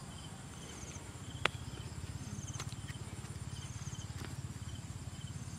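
Insects chirping in short, repeated trills over a low, rapid pulsing, with one sharp click about a second and a half in.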